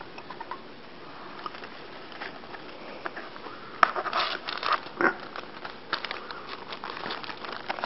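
Paper and plastic test-kit packaging being handled: rustling and crinkling with small clicks, in short clusters that grow busier from about four seconds in.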